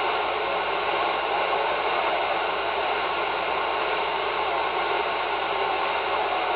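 AnyTone AT-6666 CB radio receiving single sideband on channel 38: a steady hiss of band static from its speaker, with no clear voice coming through.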